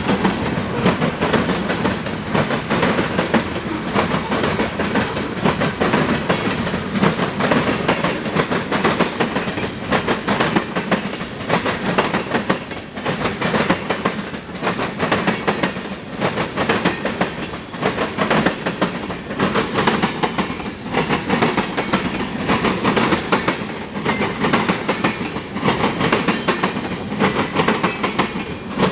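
CSX freight train's cars rolling past at steady speed, their steel wheels clacking continuously over the rail joints. There is no horn.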